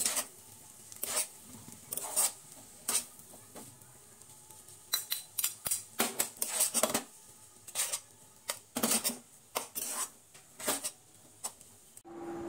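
Two metal spatulas clattering and scraping against a frying pan while chow mein noodles are tossed, in irregular sharp clicks and scrapes. They stop suddenly near the end.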